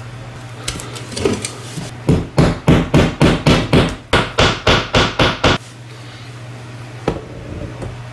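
Claw hammer driving a small nail into a wall: a few light taps about a second in, then a steady run of about fourteen quick strikes, roughly four a second.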